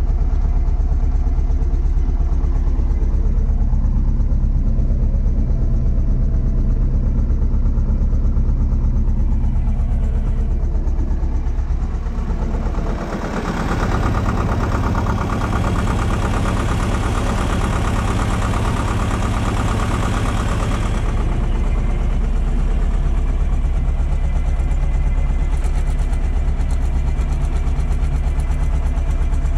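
Vladimirec T-25A tractor's two-cylinder air-cooled diesel running steadily as it drives across the field, heard from inside the cab. For about nine seconds in the middle the sound turns fuller and noisier, heard from outside the cab, then returns to the cab sound.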